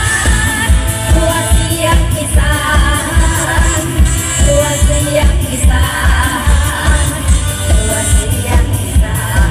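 Live Thai Isan (mor lam–style) band music played loud through a PA: singing over the band with a steady, thumping low drum beat.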